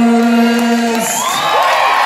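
A male singer's long held final note of a song ends about a second in, and a concert audience breaks into cheering, whoops and whistles.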